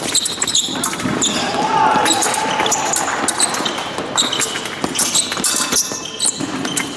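Épée bout in progress: fencers' feet stamping on the piste in quick irregular footwork, with many short high-pitched squeaks and rings between the stamps.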